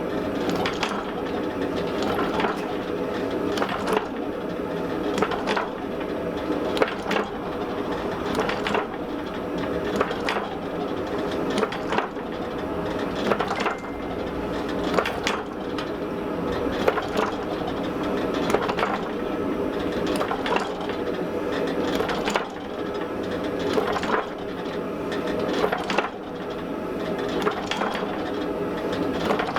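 Hot wrought iron being struck about once a second, sharp metallic impacts over a steady roar from the gas forge's burner.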